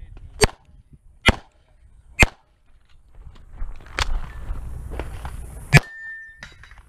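Pistol shots: three about a second apart, then a pause of rustling and a few small clicks as the pistol is lowered and tilted for a magazine change, then one more shot.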